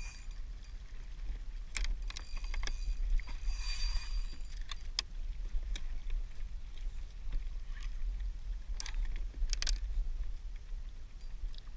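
Wind rumble on the microphone of a fishing kayak at sea, with water washing against the hull and scattered sharp clicks and knocks of gear on the deck.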